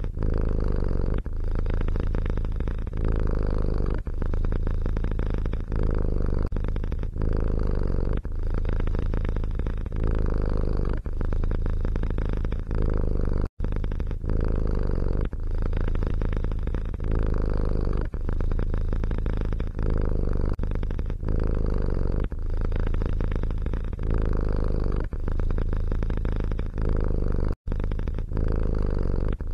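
A domestic cat purring loudly and close up: a steady low rumble that swells and eases with each breath, a cycle every second or so. It breaks off for an instant twice.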